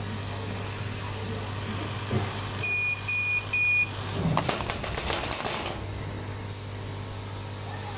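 A laser cutting machine hums steadily. About three seconds in it gives three short electronic beeps, and these are followed by a second or so of rapid clicking.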